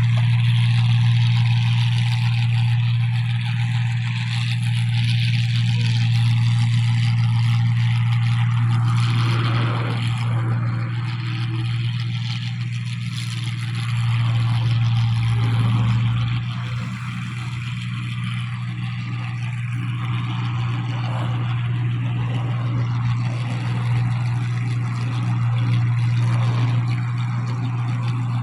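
New Holland 1545 combine harvester running steadily while harvesting rice: a constant engine drone with a busy mechanical whir of the working machinery over it.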